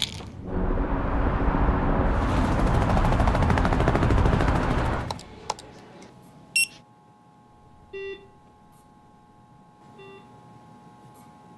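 Tablets pouring and rattling into a plastic prescription bottle for about five seconds, stopping suddenly. Then two sharp clicks of a computer mouse, and two short beeps about two seconds apart from a Welch Allyn vital signs monitor over a faint steady electronic hum.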